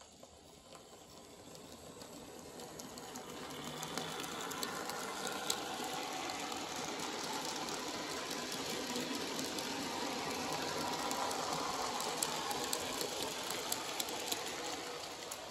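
Bachmann N scale Percy model locomotive hauling a long goods train: a steady running whirr with scattered light clicks from the wheels on the track. It grows louder over the first four seconds as the train comes by, then holds steady. It hauls smoothly, with no slipping or stuttering.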